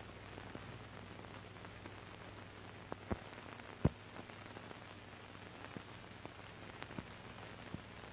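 Faint hiss and steady low hum of a worn old film soundtrack, with scattered clicks and pops; the two loudest pops come a little after three seconds in and about four seconds in.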